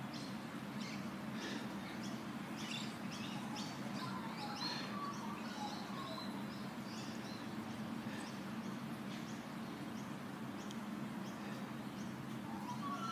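Small birds chirping: many short, high chirps scattered throughout, with a few lower notes mixed in, over a steady low hum.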